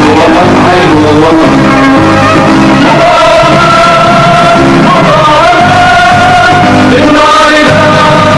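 A song: a singing voice holding long notes that waver and slide, over a steady instrumental accompaniment.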